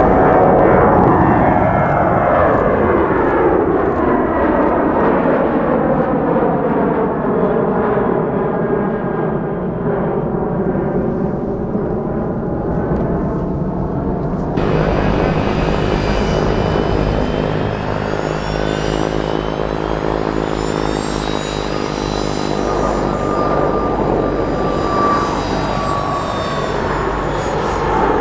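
Boeing 737-800's CFM56-7B jet engines at takeoff power climbing away, their whine sliding down in pitch as the aircraft recedes. About halfway through it cuts abruptly to a Boeing 737 MAX 8's LEAP-1B engines at takeoff power, a steady jet noise with a whine that falls slowly near the end.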